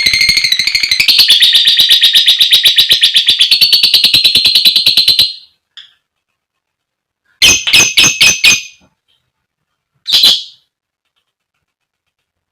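Female lovebird calling: a long, fast, shrill chatter (the 'ngekek') that stops after about five seconds, then a quick run of five sharp chirps and, a little later, a single chirp.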